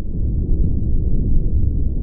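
Steady low rumble of moving seawater, with no dolphin calls standing out.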